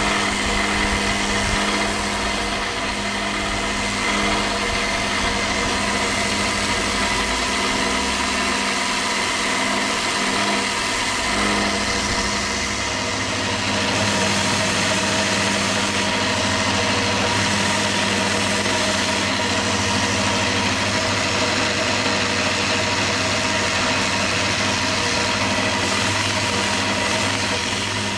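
Electric sander running steadily, sanding a glued leather knife sheath: a constant motor hum with an abrasive hiss. The lowest rumble shifts about halfway through.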